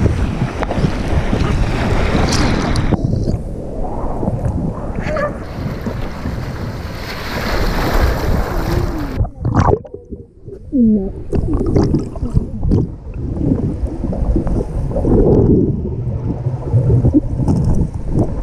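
Sea water splashing and sloshing right at the camera at the surface. About nine seconds in the camera goes under and the sound turns muffled, with underwater sloshing and bubbling.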